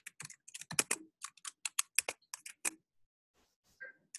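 Typing on a computer keyboard: a quick run of key clicks that pauses nearly a second about three seconds in, then a few more keystrokes near the end.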